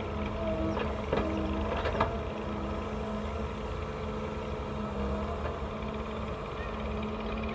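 A heavy machine's diesel engine running steadily, with two or three sharp knocks in the first two seconds, typical of an excavator bucket loading a tractor trolley.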